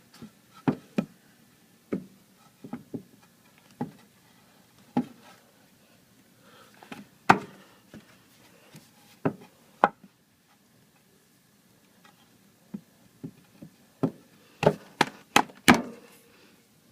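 Irregular sharp knocks and taps, about twenty in all, spaced unevenly. The loudest come about seven and ten seconds in. There is a quiet gap of a couple of seconds, then a quick cluster near the end.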